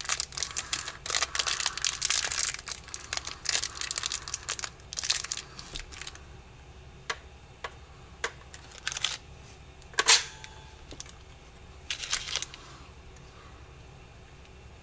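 Plastic tactical helmet being handled, with crackling and rustling, then scattered clicks and one sharp snap about ten seconds in as its spring-loaded face mask pivots up.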